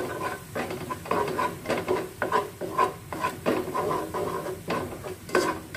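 A spatula scraping and stirring ground chili, shallot and garlic spice paste in a heavy black pan in quick repeated strokes. The paste is being dry-sautéed without oil.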